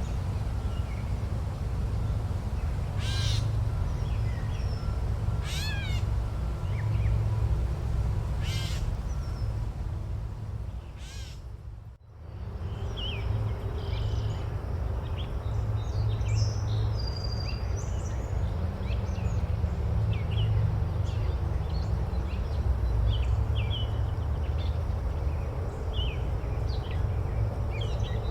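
Forest ambience: a steady low rumble, with a large bird giving three harsh calls about three seconds apart in the first half. The sound dips briefly about twelve seconds in and comes back, and then many small birds chirp over the rumble.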